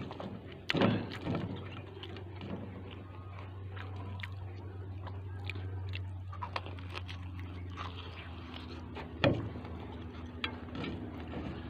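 Close-up eating sounds: a person biting and chewing pork adobo, with scattered small clicks and two louder knocks, about a second in and near the end. A steady low hum runs underneath.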